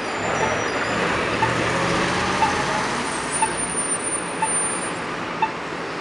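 City street traffic with buses passing close by, a low engine rumble swelling over the first few seconds. A thin high whine runs for a couple of seconds midway. Through it a pedestrian crossing signal gives a short tick about once a second.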